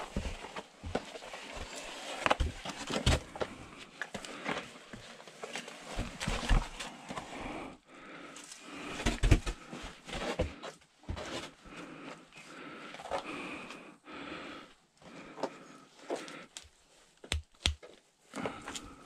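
Irregular footsteps, scrapes and knocks on rock and loose ground: a person climbing down into a limestone cave.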